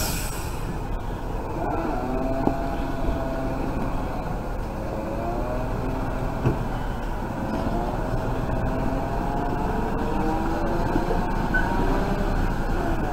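Ural truck's engine running steadily at low revs as the loaded truck reverses slowly onto a barge ramp.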